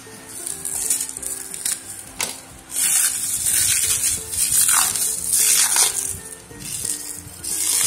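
Clear plastic wrap crinkling and rustling in loud bursts as hands peel it off a jar, over soft background music.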